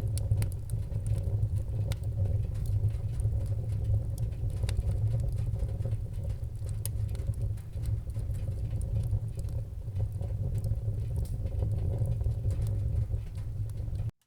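Wood fire burning in a fireplace: a steady low rumble of flames with scattered sharp crackles and pops. The sound cuts off suddenly near the end.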